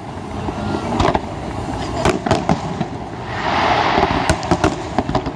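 Fireworks display: aerial shells bursting in a string of sharp bangs over a steady low rumble, with a rush of hiss in the middle.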